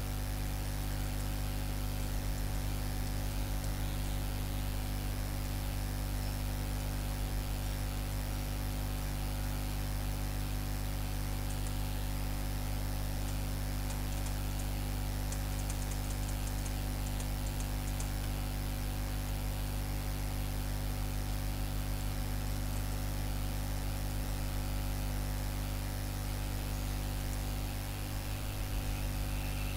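Steady electrical mains hum with hiss from the recording microphone, unchanging throughout, with a few faint ticks about halfway through.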